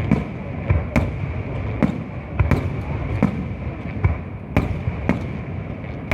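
Fireworks bursting in a rapid, uneven series of sharp bangs, about ten in six seconds, over a steady background.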